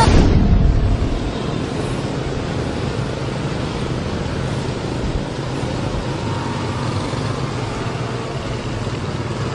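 Motorcycle engine running steadily as it rides through street traffic, with a constant road and traffic noise and no sudden events. The music ends about a second in.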